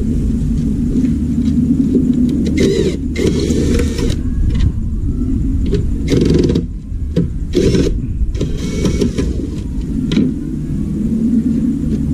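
Cordless drill whirring in several short bursts as it drives the screws out of a van's plastic headlight trim, over a steady low rumble.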